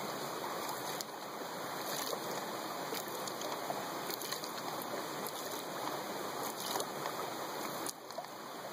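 Stream water flowing and splashing steadily, with a few faint clicks and knocks.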